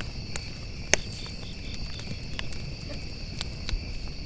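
A small campfire of dry brush crackling, with sharp pops scattered through it, the loudest about a second in, over the steady high trill of night insects.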